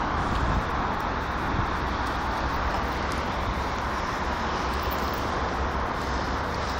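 Steady outdoor noise: wind rumbling on the microphone over an even hiss of distant road traffic.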